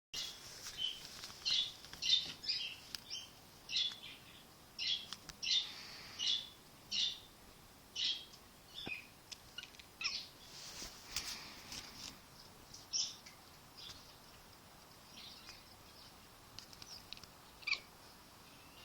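A kitten chirping, the chattering a cat makes while watching birds: short high chirps, one or two a second, thinning out after about thirteen seconds.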